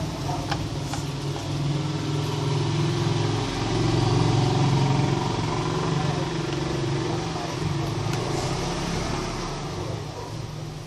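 An engine running, growing louder to a peak about four seconds in and then slowly fading, like a vehicle going by.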